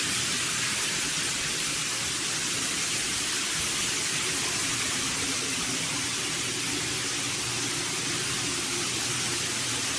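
Running shower: water spraying from a rain shower head in a steady, even hiss.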